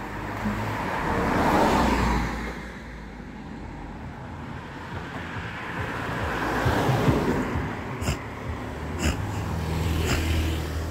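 Street traffic: vehicles passing by, two swelling rushes over a low steady rumble, with a few sharp clicks near the end.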